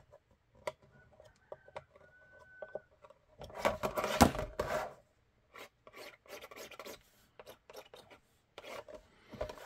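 Hands rubbing and sliding a molded carbon-fibre-pattern plastic holster shell and mounting plate while a pencil scratches layout marks on its surface. The loudest rubbing comes about three and a half to five seconds in, followed by short, broken scrapes.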